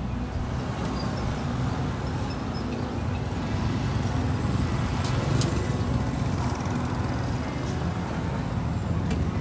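Street traffic: a steady low rumble of motorbikes and cars, with a couple of short clicks about five seconds in.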